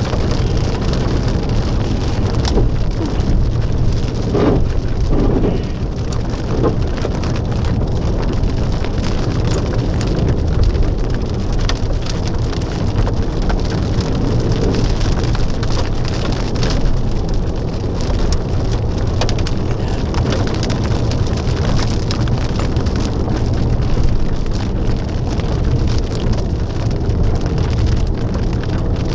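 Rain and gusty wind from a thunderstorm: a steady rushing noise with a heavy low rumble of wind on the microphone and many small drop ticks.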